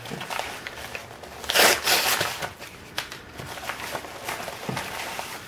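A white padded envelope being handled and torn open by hand: paper crinkling and rustling with small crackles, and a louder burst of rustling about a second and a half in.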